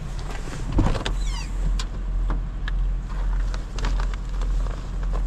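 Honda Fit's four-cylinder engine idling, a steady low hum, heard from inside the car with the door open. Over it come rustles and short knocks as a reusable shopping bag is handled, with the loudest knock about a second in.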